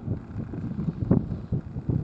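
Wind buffeting the microphone in irregular gusts, with no siren tone.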